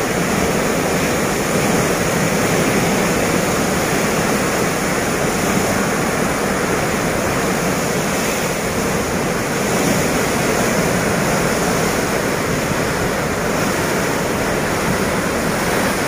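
Heavy, turbulent floodwater rushing and churning in a fast river, a steady, even wash of water noise.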